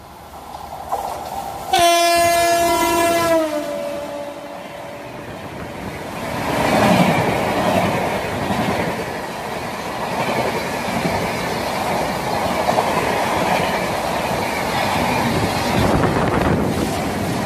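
Lucknow–New Delhi Shatabdi Express sounding one long horn blast about two seconds in, falling in pitch as it ends. From about six seconds in, the loud rush and clatter of its coaches passing at full speed through the station.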